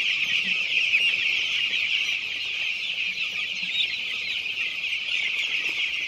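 A flock of six-day-old broiler chicks peeping continuously: many overlapping high chirps with no break.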